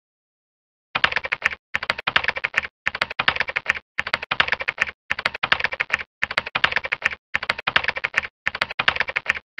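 Typing sound effect: rapid keyboard clicks in about nine short runs with brief pauses between, starting about a second in, timed to on-screen text being typed out.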